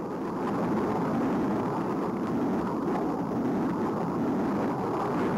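Jet fighter in flight: a steady, even rush of engine noise with no distinct tone.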